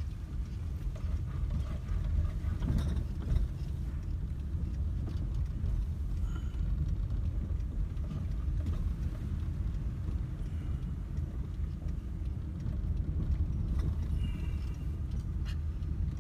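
Car driving slowly, heard from inside the cabin: a steady low rumble of engine and tyres, with a few sharp clicks along the way.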